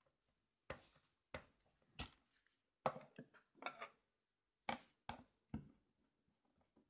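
A series of sharp plastic clicks and knocks, about eight over five seconds, as an analog plug-in timer is handled on and off its plastic socket base and set down on the table.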